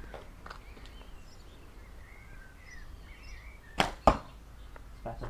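A 40-pound English longbow is shot: a sharp slap of the string on release, then about a third of a second later a second sharp knock as the arrow strikes the target.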